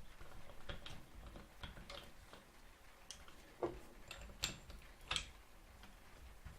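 Irregular small clicks and knocks of camera-mount parts being handled and fitted together. A few sharper taps stand out about three and a half, four and a half and five seconds in.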